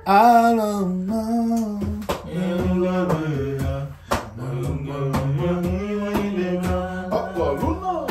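Background music: a song with a male voice singing long, held notes over sharp percussive hits.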